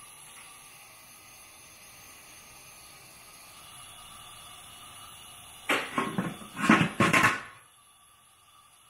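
Metal lid of an old fish steamer put onto the pot: a quick cluster of clanks and scrapes about six seconds in, after faint steady room noise.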